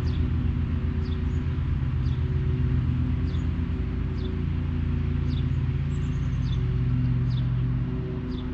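A steady low machine hum with several even tones, pulsing at the bottom until about halfway through and then smooth. Short high descending chirps sound over it about once a second.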